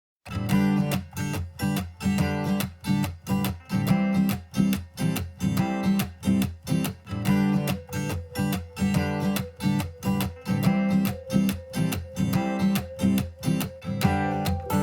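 Background music: acoustic guitar strummed in a steady rhythm, starting suddenly after silence.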